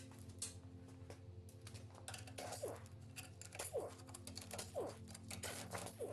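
Scattered light clicks and taps of tools and engine parts being handled, with about four short squeaks that fall in pitch, over a steady low hum.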